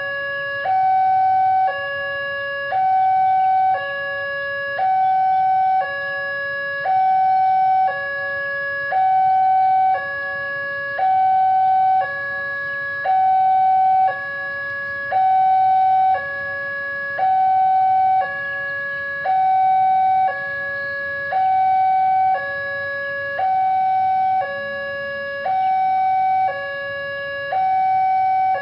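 Electronic two-tone warning alarm of a railway level crossing, a lower and a higher tone alternating evenly about once a second each, the higher tone louder: the signal that a train is approaching.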